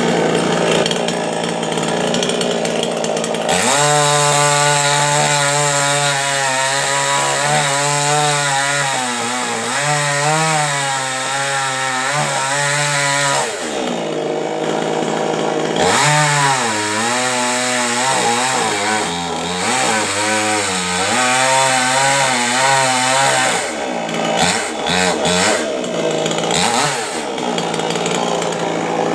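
Two-stroke chainsaw running hard, its engine pitch rising and falling as it cuts into a coconut tree trunk. About halfway through it drops back briefly, then revs up again, and it runs unevenly near the end.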